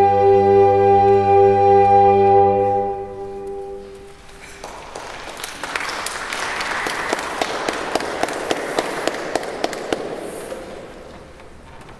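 A recorder ensemble holds a final chord over a low bass-recorder note, which cuts off about three seconds in and dies away in the church's reverberation. The audience then claps, the applause fading out near the end.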